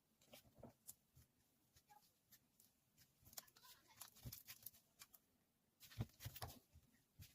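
Faint, scattered small clicks and rustles of small objects being handled, a little louder about four and six seconds in.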